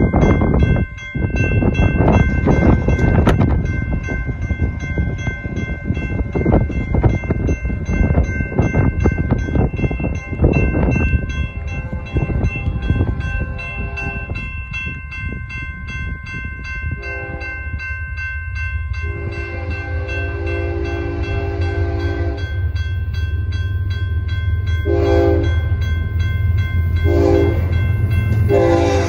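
Grade-crossing warning bell ringing steadily as a BNSF freight train approaches. From about two-thirds of the way in, the diesel locomotive's air horn sounds the crossing signal: two long blasts, two short ones, then a long blast that begins near the end. A low rumbling noise fills the first several seconds.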